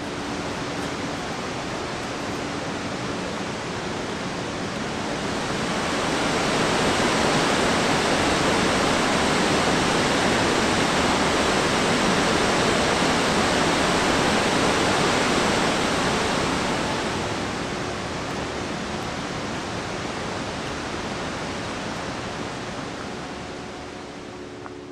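Arripas Waterfall's water rushing as one steady, even noise. It swells louder from about six seconds in and eases off again after about seventeen seconds.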